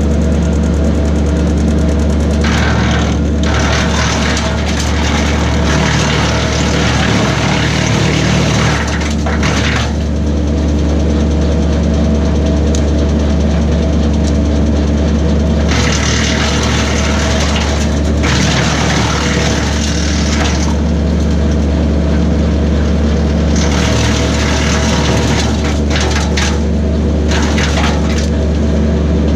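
A tractor-PTO-driven BECO 4-inch wood chipper runs on a Kubota B2601 compact tractor's diesel engine, which holds a steady hum. Every several seconds there is a stretch of harsher, noisier chipping as cherry branches are fed through the chipper.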